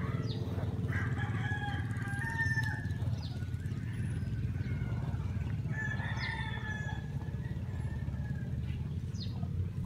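A rooster crowing twice, two long drawn-out crows about a second in and again about six seconds in, over a steady low rumble.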